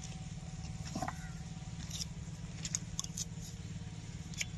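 A steady low engine drone, with scattered light clicks and taps as a metal ECM casing and a screwdriver are handled.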